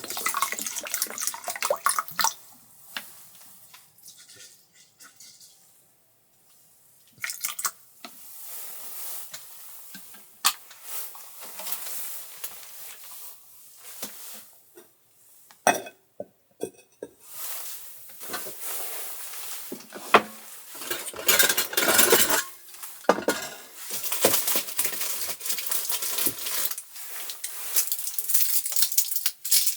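Dishes, pots and cutlery being handled, with scattered clinks and knocks, a short pause a few seconds in, and a busier run of clattering near the end.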